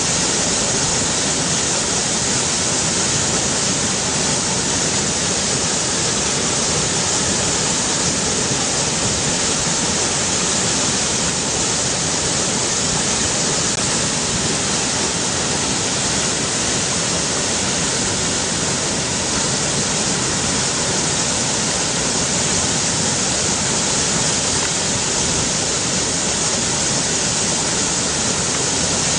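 River water rushing, a steady, unbroken hiss with no change throughout.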